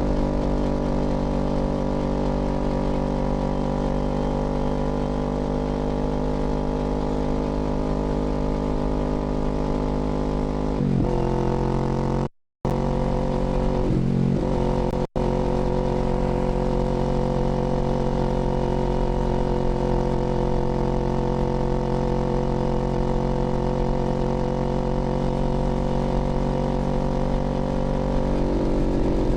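Kawasaki Z400's parallel-twin engine running at a steady speed under way. Its pitch shifts around eleven and fourteen seconds in, and the sound cuts out for a moment about twelve seconds in and again briefly about fifteen seconds in.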